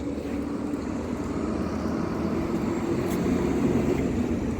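A motor vehicle's engine running close by over a steady rumble of wind and road noise, getting a little louder in the second half.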